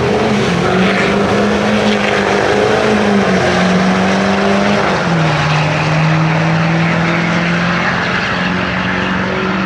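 Pickup trucks' engines at full throttle in a drag race launch. The engine note holds high, drops sharply about five seconds in at an upshift, then climbs again.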